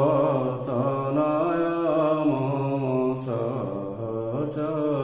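A man's voice chanting a verse of Odia poetry in the Chakrakeli chhanda metre. He sings it in long, drawn-out held notes, with short breaths between phrases.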